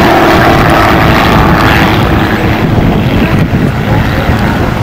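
Single-engine aerobatic propeller plane flying overhead in a climbing display manoeuvre, its engine note loud and steady at first, then giving way to a rough rumble of wind on the microphone.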